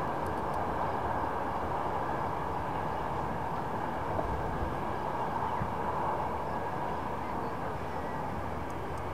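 Steady running noise of a moving train: an even hiss with no distinct events.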